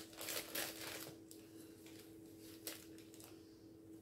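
Faint rustling of packaging being handled, mostly in the first second, with a couple of light taps later, over a steady low hum.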